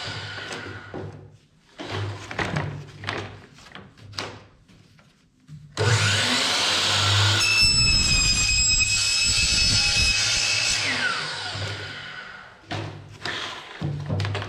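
Power saw started up and run through a cut for about five seconds, its motor whine falling in pitch as it winds down. Handling knocks and clatters come before and after the cut.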